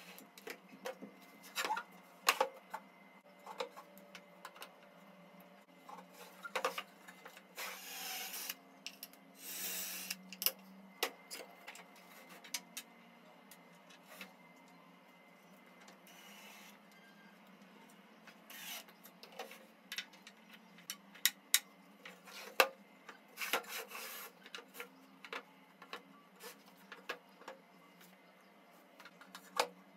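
Pine table parts and hardware being handled and fitted together on a workbench: many scattered sharp clicks and knocks of wood on wood, with two short rasping bursts about eight and ten seconds in.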